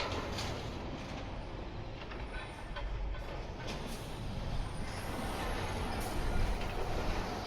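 Low, steady rumble of passing vehicle traffic, a little louder about six seconds in.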